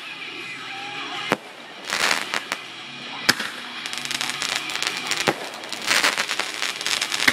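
Fireworks going off: sharp single bangs about every two seconds, over dense crackling from crackling comets and bursts. The crackling thickens through the second half.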